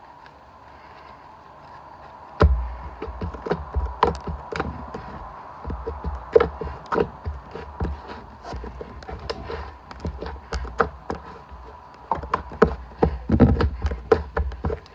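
Shaving-foam slime being squeezed and kneaded by hand, giving an irregular run of wet clicks and pops with low thumps, starting about two and a half seconds in.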